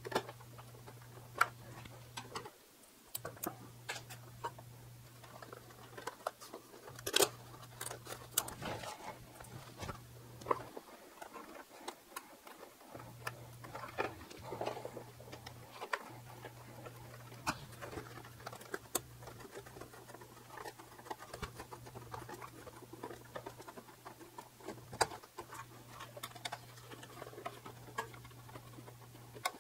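Hands working small parts on a foam RC biplane's wing struts: scattered light clicks, taps and rustles as wires and little screws are fitted, over a steady low hum.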